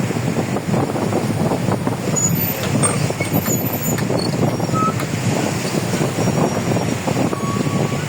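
Heavy-equipment diesel engine running steadily as the machine moves through shallow seawater, mixed with wind on the microphone and surf.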